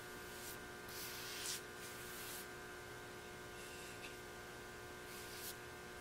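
Paintbrush laying oil-based polyurethane onto an aromatic cedar board: a few soft strokes, each a short hiss, in the first couple of seconds and once more near the end, over a steady faint hum.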